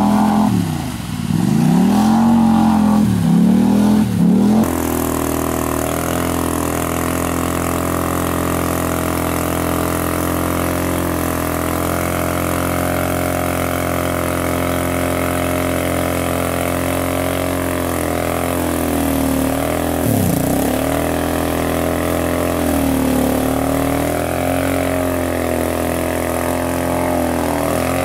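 ATV engine revving up and down in short bursts, then held at a steady high-rpm drone with a couple of brief drops in revs. The quad is stuck deep in mud and the engine is being throttled to drive it out.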